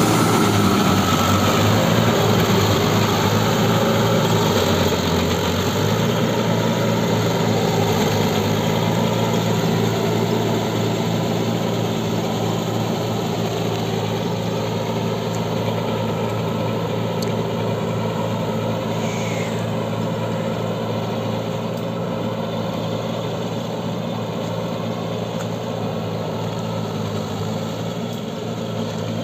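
Mahindra Yuvo 575 tractor's 45 hp four-cylinder diesel engine running steadily under load while its rotary tiller churns wet mud, fading gradually as the tractor moves away.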